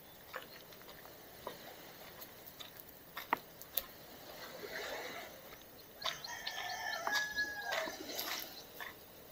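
A rooster crowing once, a call of about two seconds that starts about six seconds in. A few sharp clicks come before it.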